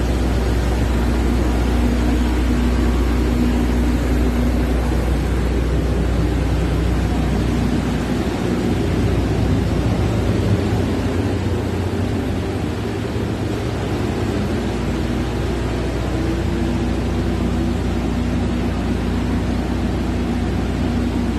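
Steady drone of running generator sets: a loud engine noise over a deep, even hum. The lowest hum drops away for several seconds around the middle, then comes back.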